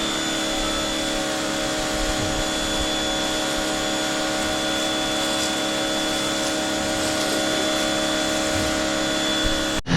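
Pressure washer running steadily: a motor-driven pump hum with a spray hiss over it. It cuts off abruptly near the end.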